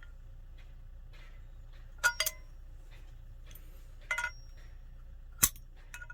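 Small metal parts and tools clinking as they are handled during a truck seat armrest bolt repair: two quick ringing clinks about two seconds in, another pair about four seconds in, then a sharp click and a few small ticks near the end, over a low steady hum.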